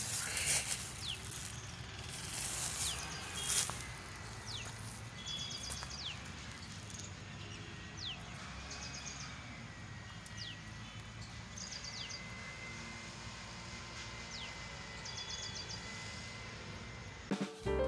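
Outdoor ambience with birds calling: short falling whistle notes and quick chattering trills repeat every couple of seconds over a low steady rumble, with a few louder rustles in the first few seconds. Piano music starts just before the end.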